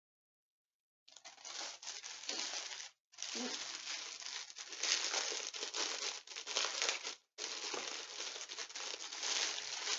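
Clear plastic packaging crinkling as it is handled and pulled open, starting about a second in and running in three long stretches with brief breaks between them.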